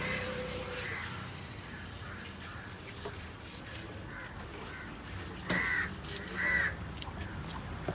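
Crows cawing: scattered calls over a steady background hum, the two loudest caws about five and a half and six and a half seconds in.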